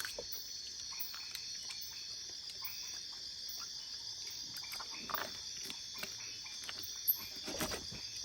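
Steady high-pitched chorus of insects such as crickets, with a few soft knocks and scrapes about five seconds in and near the end.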